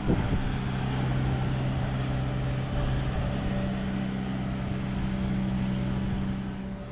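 Boatyard travel lift's engine running at a steady low drone.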